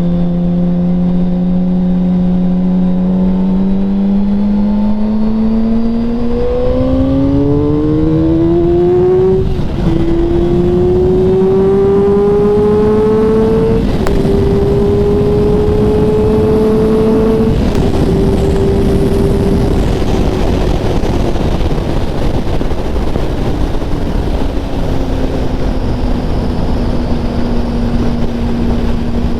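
2007 Yamaha R6's 600 cc inline-four engine pulling hard through the gears. Its pitch climbs steeply, dropping briefly at quick upshifts about nine and a half and fourteen seconds in. After another drop near eighteen seconds the revs sink and settle lower, under a growing rush of wind.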